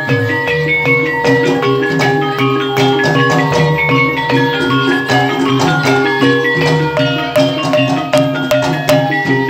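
Live Banyumasan gamelan music for an ebeg dance: kendang hand drums beating time under a steady, repeating melody of struck tuned instruments.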